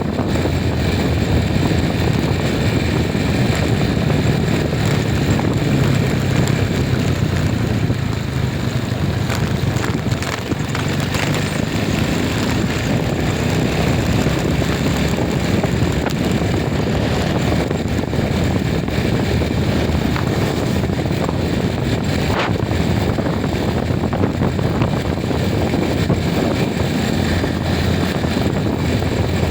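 Steady rumble of a vehicle travelling along a road, engine and road noise running on with no break.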